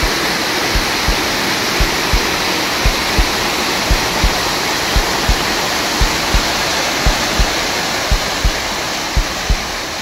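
Steady rush of a waterfall, with a low double thump like a heartbeat repeating about once a second. The rush fades near the end.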